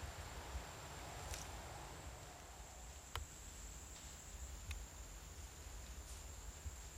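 Quiet leafy woodland ambience: a steady high-pitched insect drone, a low rumble underneath, and about five faint sharp clicks scattered through.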